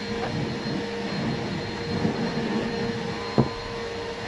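A steady room hum with a faint held tone, and one sharp click a little over three seconds in. Under it, hands are tearing at a pomelo's thick rind.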